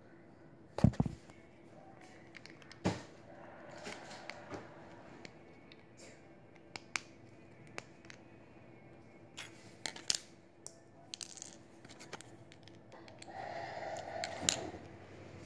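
Plastic Lego bricks being handled and pressed together: scattered sharp clicks and clatters, the loudest about a second in, with softer taps and rustling between.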